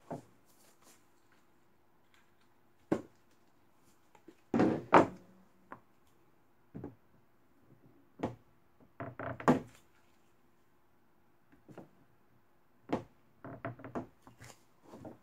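Irregular thunks and knocks as a soap loaf is handled, turned and set down on a cutting mat and into a clear acrylic soap planer. A longer, louder run of knocks comes about five seconds in.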